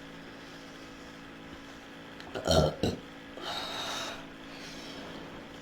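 A girl burps loudly once, about halfway through, ending in a short sharp catch. A softer breathy sound follows a moment later.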